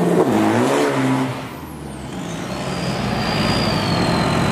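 Isuzu D-Max 3000 turbo-diesel drag truck's engine revving hard in a burnout, its pitch dipping and climbing, then backing off about a second and a half in. A long high whistle follows, falling in pitch as the turbocharger spins down over the engine running at low revs.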